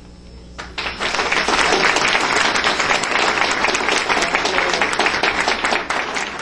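Last notes of a long-necked lute fading out, then audience applause breaks out about a second in and goes on steadily.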